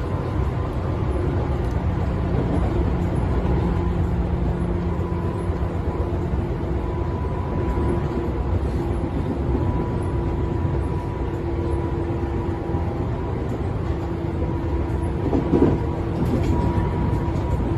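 Tobu 10000 series electric train running at speed: a steady rumble with faint steady tones over it and a brief louder swell near the end.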